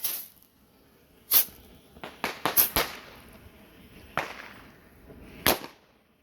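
A batch of World Class Premium bottle rockets going off: a string of sharp pops, several bunched together around the middle and a last loud one near the end.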